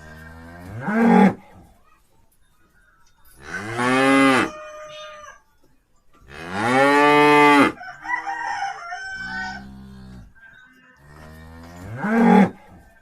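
Cattle mooing: four long calls a few seconds apart, some rising in pitch, with quieter lower sounds between them.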